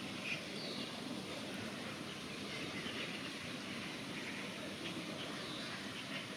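Steady outdoor background noise with a few faint, short, high chirps scattered through it.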